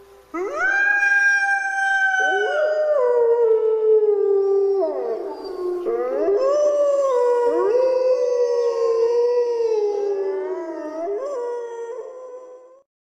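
Wolves howling: long, drawn-out howls that slide slowly down in pitch and rise again, several voices overlapping. The howling cuts off near the end.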